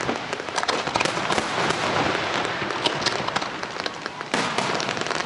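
Aerial fireworks display: a dense, rapid stream of sharp bangs and pops overlapping one another. It eases slightly, then a fresh barrage starts abruptly about four seconds in.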